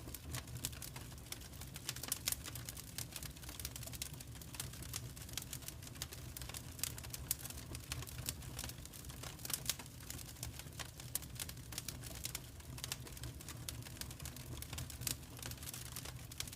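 Wood fire crackling and popping, with irregular sharp snaps of varying loudness over a steady low rumble.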